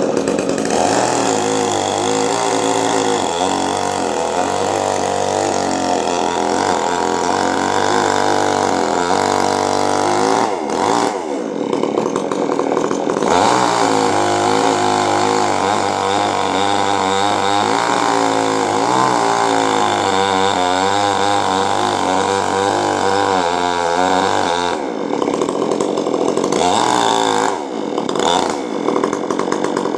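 Chainsaw running hard, its pitch wavering as it cuts into a coconut palm. Twice, about a third of the way in and again near the end, the engine drops back for a second or two before revving up again.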